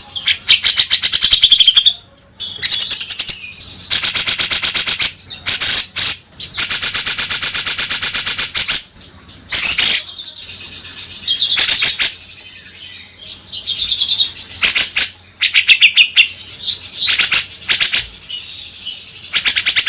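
Grey-cheeked bulbul (cucak jenggot) calling loudly: bursts of very fast, harsh chattering trills up to about two seconds long, alternating with short whistled phrases.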